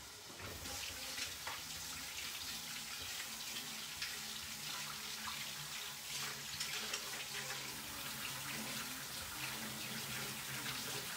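Kitchen tap running into the sink, starting about half a second in, as hands and a garlic press are rinsed under the cold water.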